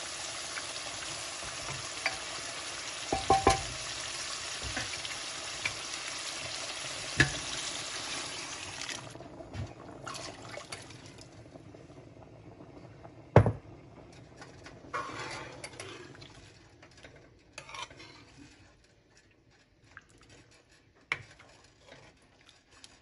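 Kidney beans in masala sizzling in a metal pan, with a metal spoon stirring and clinking against the pan. The sizzle stops abruptly about nine seconds in. After that the curry is stirred quietly, the metal spoon tapping the pan, with one loud sharp knock around the middle.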